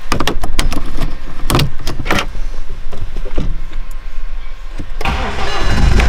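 Clicks and knocks of the key fob going into the ignition slot and the start button being pressed. About five seconds in, the BMW N47 2.0-litre four-cylinder diesel engine cranks and starts, its first start with a new crankshaft pulley fitted.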